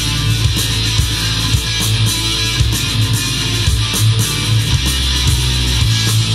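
Guitar-driven rock music from a studio recording: electric guitars over bass and drums.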